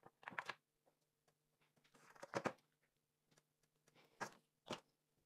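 Faint handling sounds: a few soft clicks and taps as frozen fruit inserts are pushed out of a silicone mould and set into a plastic egg mould, over a faint steady hum.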